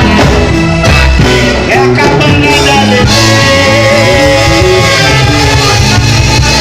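Live pagode music with a plucked string instrument, bass and percussion, and a sung or held melody over it.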